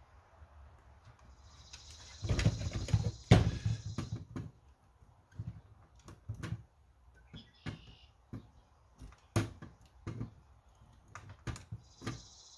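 Irregular clicks, taps and knocks of needle-nose pliers and fingers working wires inside an opened plastic Nerf blaster shell, with a few louder thumps early on. A high steady hiss comes and goes twice.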